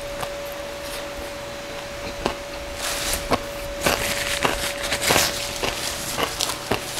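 Close-miked eating sounds: chewing with sharp wet clicks and smacks of the mouth on a mouthful of roast pork belly and rice. About three seconds in, a paper napkin wiped across the mouth adds a rustling hiss for two or three seconds. A faint steady tone runs underneath.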